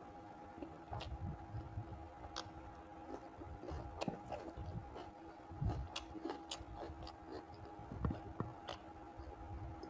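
A man chewing pork curry and rice, with wet mouth sounds and scattered sharp clicks, as his fingers pick through the food and dip into the gravy.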